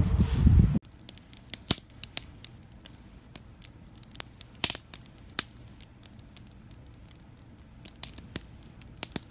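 Wind rumble on the microphone at the shore, cut off abruptly less than a second in. Then a wood fire crackles in a metal fire pit, with irregular sharp pops and snaps.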